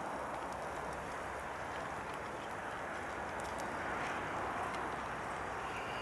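Camp stove burning under a cooking pot: a steady rushing hiss with a few faint crackles from the fire.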